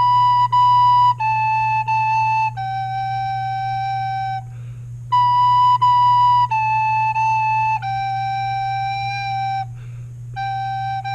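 Soprano recorder playing a slow beginner tune in single held notes: B, B, A, A and a long G, played twice with short breaths between, then G, G, A, A beginning near the end. A steady low electrical hum runs underneath.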